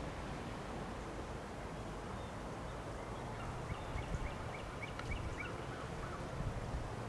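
A bird's rapid run of short, repeated calls, from about three seconds in to about five and a half, over a steady low rumble of background noise.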